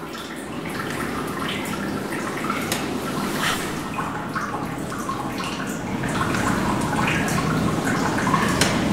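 Fountain water running and splashing, with many small drips and plinks over a steady rush; it grows a little louder about six seconds in.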